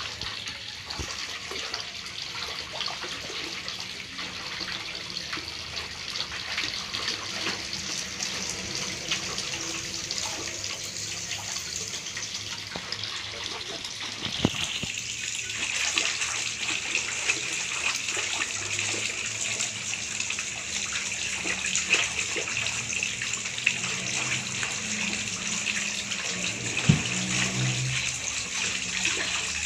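Water splashing and sloshing as a toddler's hands slap and stir it in a large aluminium basin, a continuous wet splashing that grows a little louder about halfway through. A single sharp knock near the end.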